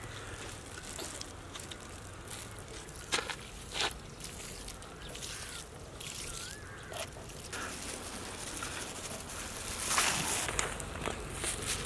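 Thin stream of liquid poured over rice in a large biryani pot, faint against a steady outdoor background with a few light knocks. About ten seconds in comes a short rustling patter as chopped mint and coriander leaves are scattered onto the rice.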